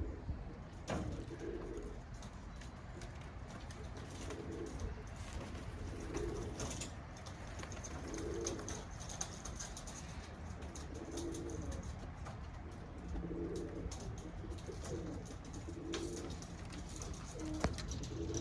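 Birmingham roller pigeons cooing: low, rounded coos repeating every second or two, with scattered light clicks and taps.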